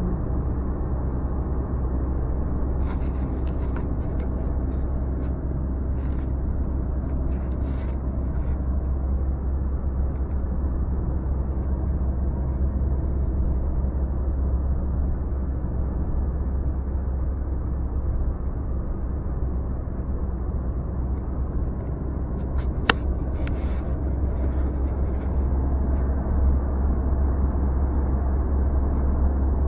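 Steady low rumble of a car's engine and tyres heard from inside the cabin while driving at highway speed, with a few faint ticks and one sharp click about two-thirds of the way through.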